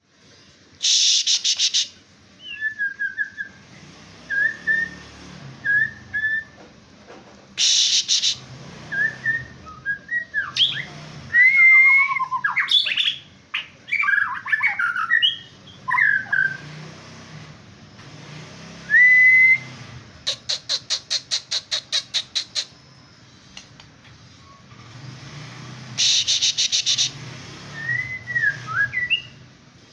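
Male white-rumped shama singing: varied clear whistled phrases and glides, broken by three loud harsh buzzy bursts and one fast rattle of about eight notes a second.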